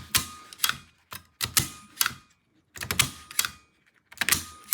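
Vintage desk stapler being pressed down and let back up over and over, each stroke a sharp metallic snap, often doubled, about once a second.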